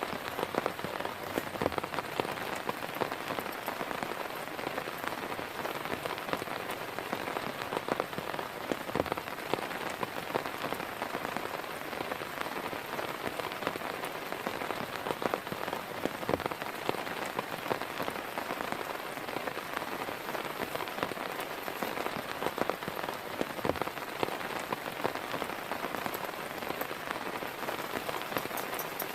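Rain falling steadily, with many individual drops landing close by as sharp taps over a continuous hiss.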